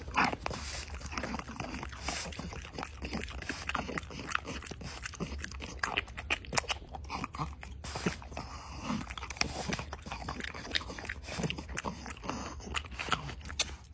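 French bulldog chewing a hand-fed treat, with many irregular crunches and mouth clicks.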